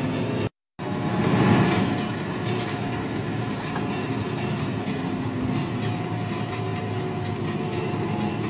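John Deere tractor engine running steadily under load, heard from inside the cab. The sound cuts out completely for a moment about half a second in, then swells briefly before settling back to an even drone.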